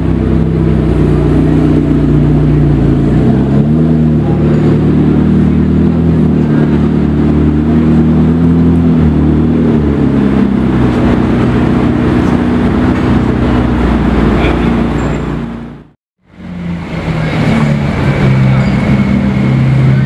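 Sports car engines running at low revs in slow street traffic, a steady low rumble with small rises in pitch. The sound cuts out abruptly for a moment about sixteen seconds in, then another engine rumbles on.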